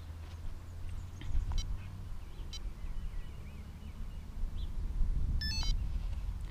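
Low, fluctuating wind rumble on the microphone, with faint bird chirps and a couple of small clicks as the buttons of a handheld Garmin GPS unit are pressed; a short high electronic-sounding beep near the end.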